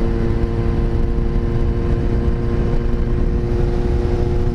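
Kawasaki Z900 inline-four engine running at a steady cruise, its note holding level with no revving, under heavy low wind rush on the microphone.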